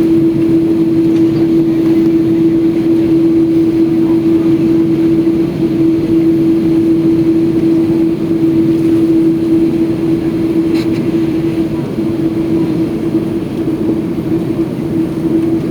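Airbus A330-300 jet engines running, heard inside the passenger cabin: a loud steady drone with a constant humming tone over a dense low rumble, neither rising nor falling.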